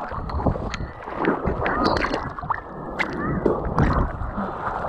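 Sea water splashing and sloshing right at the microphone of a camera held at the surface by a swimmer, with many sharp irregular splashes over a rough wash.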